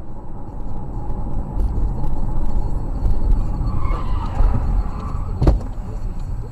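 Steady low road and engine rumble of a car driving, heard from inside through a dash cam, with one sharp thump about five and a half seconds in.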